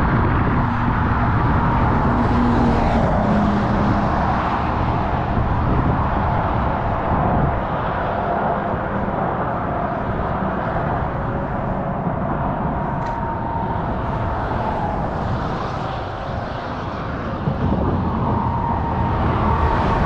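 Steady road traffic: vehicles passing on the roadway nearby, a continuous rushing hum that eases a little about two-thirds of the way through and then picks up again.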